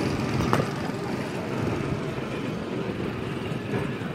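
Steady outdoor background noise around a batting cage, with a single sharp knock about half a second in.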